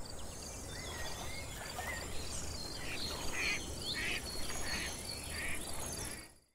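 Nature ambience: birds chirping and whistling, with a run of about four repeated calls in the middle, over a steady high insect trill and a low background rumble. It fades out near the end.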